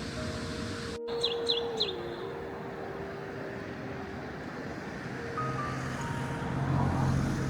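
Soft background music with long held notes. About a second in, a bird gives three quick high chirps, and a low hum rises near the end.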